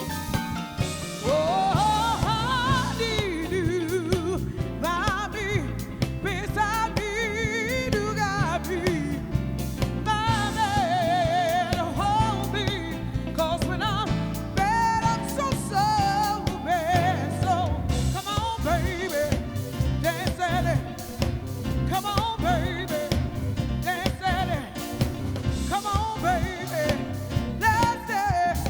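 Live soul band playing with a lead singer, in a Motown style, with bass and drums and a wavering, ornamented vocal line.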